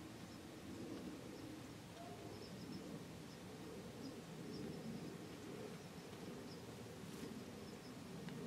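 Faint outdoor evening ambience: a low, steady murmur with a few soft, high chirps through the middle.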